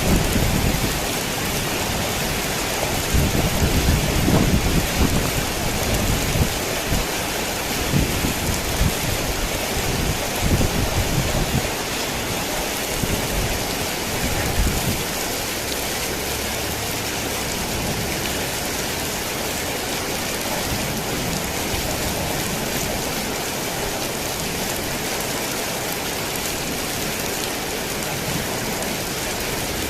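Heavy rain drumming steadily on a tin roof, with rolls of thunder rumbling low through the first half. The thunder dies away about halfway through, leaving only the even hiss of the rain.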